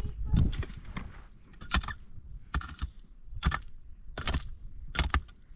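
About six sharp knocks or clicks, a little under a second apart.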